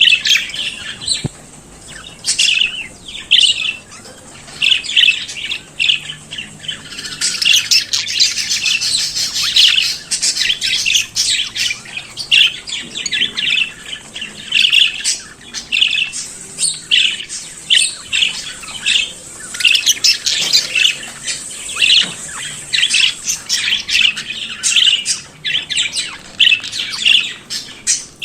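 Budgerigars chattering and warbling: a steady run of quick, high chirps and squawks, with a busier stretch of continuous chatter about a quarter of the way in.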